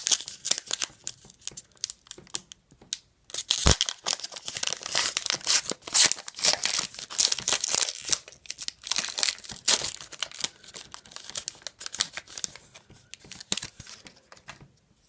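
Plastic wrapper of a hockey card pack being torn open and crinkled by hand. The crackling comes in spurts and is heaviest in the middle, then thins out near the end.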